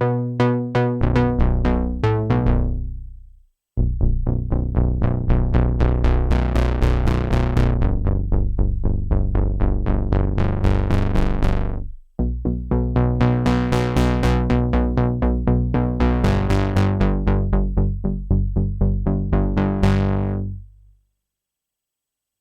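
Sequential Prophet Rev2 analog polyphonic synthesizer playing a fast repeating sequence of bright plucked notes, about five a second, over a deep sustained bass, in three phrases with short breaks between them.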